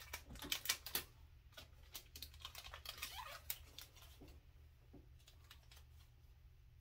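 Paper and plastic packaging rustling and clicking as the contents of a press-on nail kit are rummaged through, busiest in the first second, then sparser and fainter.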